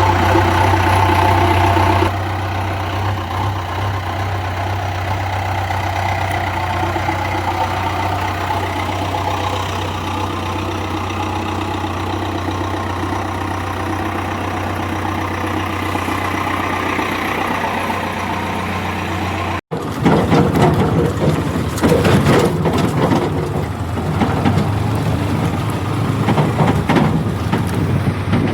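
Heavy diesel machinery engine running steadily. About two-thirds of the way through, after a brief dropout, it gives way to a rougher, uneven engine sound with irregular rattling and knocking.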